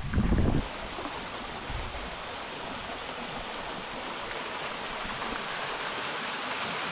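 Wind buffeting the microphone for about half a second, then an abrupt change to the steady rush of a small waterfall.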